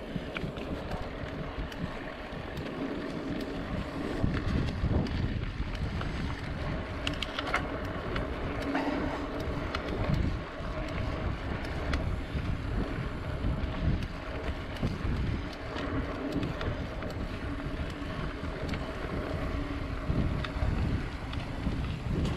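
Wind buffeting the microphone while a mountain bike rolls along a dirt trail: a gusting rumble from the knobby tyres and air, broken by a few sharp clicks and rattles.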